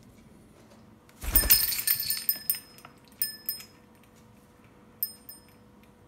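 A thump, then bright metallic jingling and clinking as a parrot climbs onto a hanging rope perch, followed by two shorter jingles about two and four seconds later.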